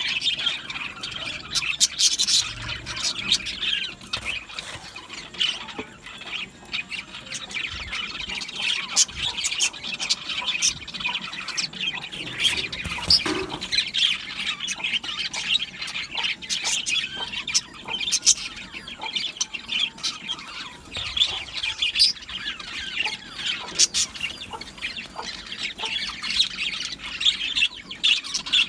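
A colony of budgerigars chattering and chirping, many high calls overlapping without pause, with frequent sharp squawks and clicks.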